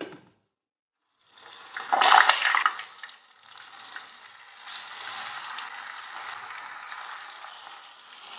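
Chicken meatballs deep-frying in hot oil in a small pot: a loud surge of sizzling about two seconds in, settling into a steady bubbling sizzle.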